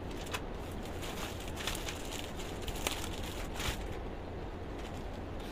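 Faint rustling and light handling noises from garments being picked up and moved, a few small rustles and clicks over a low steady hum.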